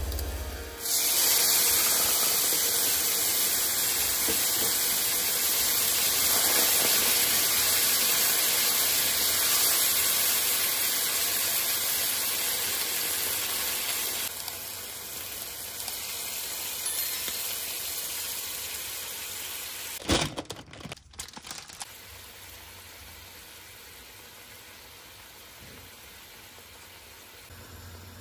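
Food sizzling in a hot frying pan: sausage slices, then a red sauce. The sizzle starts suddenly about a second in and is loud at first. About halfway through it drops to a quieter hiss, breaks off briefly, and goes on as a faint, steady simmer.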